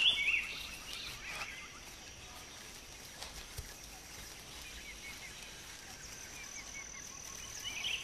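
Forest ambience: birds chirp, most clearly in the first second and a half, over a low steady background. A thin, steady, high insect tone comes in during the last second and a half.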